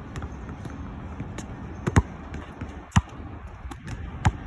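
A basketball bouncing on hard court: three sharp thuds, about two, three and four seconds in, with fainter knocks between.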